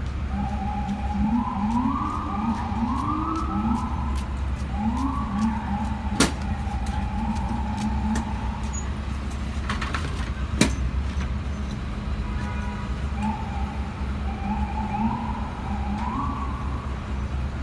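A whine that rises and levels off again and again, over a steady low rumble of city traffic. Two sharp knocks come about six and ten and a half seconds in.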